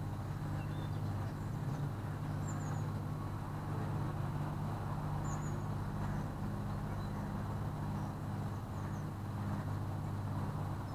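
Cabin cruiser's engine running steadily at slow cruising speed, a constant low drone. A few faint, short, high chirps sound over it.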